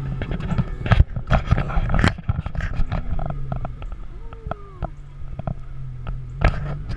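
Handling knocks, clicks and rustles from a camera being moved about close to the microphone, over the low steady hum of an Audi R8's engine running at low revs.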